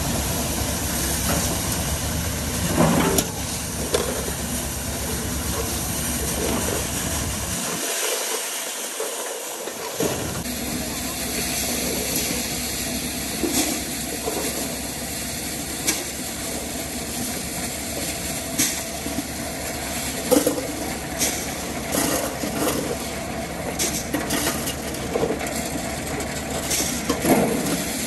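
Tractor-driven maize sheller running with a steady mechanical noise and hiss, with scattered sharp knocks. The low rumble drops out for about two seconds around eight seconds in.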